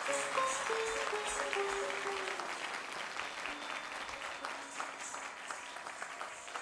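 Audience applauding, with a few held notes of the accompanying music sounding over the clapping in the first couple of seconds.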